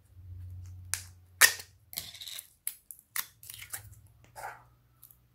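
Plastic slime tub and its lid being handled, giving sharp clicks and snaps, the loudest about a second and a half in. A lump of clear pink slime is lifted out of the tub, with more crackling clicks.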